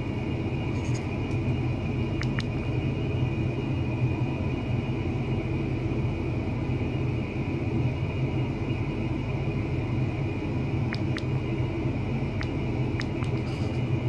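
Steady low rumbling hum with a faint high-pitched tone held above it and a few faint ticks scattered through.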